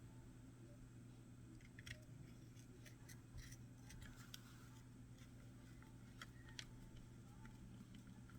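Near silence with a few faint, scattered clicks and ticks of a small screwdriver driving screws into the plastic housing of a Blink Outdoor camera, over a low steady hum.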